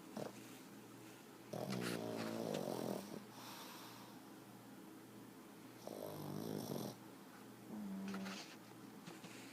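Pug snoring: two long snores of about a second each, some four seconds apart, with a shorter steady-pitched breath near the end.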